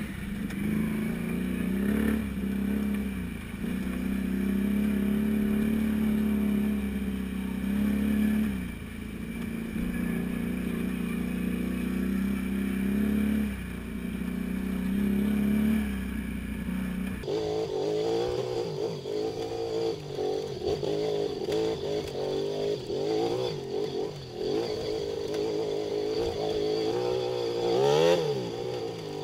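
Can-Am Renegade 500 ATV's single-cylinder engine running under throttle, its pitch rising and falling repeatedly as the rider speeds up and backs off. About two-thirds of the way through the sound abruptly changes and sits higher in pitch, with a quick rev up and down near the end.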